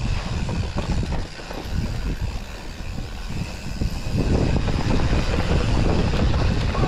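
Mountain bike riding fast over a rough dirt trail: a steady tyre rumble with rattling knocks from the bike, getting louder about four seconds in.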